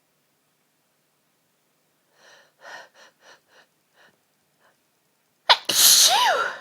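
A person's sneeze build-up: about six short catching breaths in quick succession, then a loud sneeze with a sudden start and a voiced "choo" that falls in pitch.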